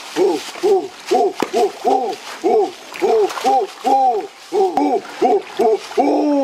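A rapid, continuous series of hooting calls, about three a second, each note rising and falling in pitch, with some notes overlapping.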